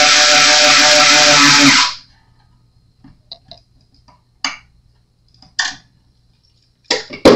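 Small cordless electric screwdriver running steadily as it drives a string-tree screw into a bass guitar headstock, stopping about two seconds in. A few light clicks of handling follow, with a sharper click near the end.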